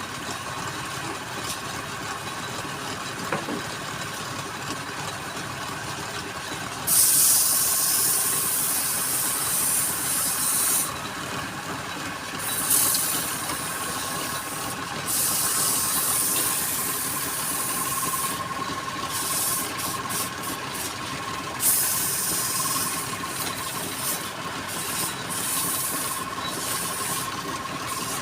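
Wood lathe running steadily with a thin constant tone. From about a quarter of the way in, a turning tool cuts the spinning wood in repeated hissing passes that start and stop.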